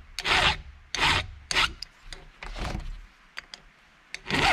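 Flat file rasping across the steel rakers (depth gauges) of a chainsaw chain through a depth-gauge guide, about five short strokes with a pause before the last one near the end. The rakers are being taken down about half a millimetre; when the file stops cutting, the raker is flush with the gauge.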